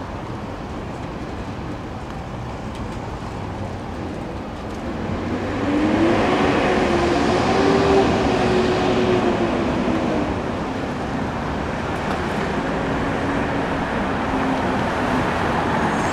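R188 subway trains running on an elevated steel structure: a steady rumble of wheels on rail that grows louder about five seconds in, with a motor whine rising and then falling as a train passes, then a steady rumble as the next train approaches.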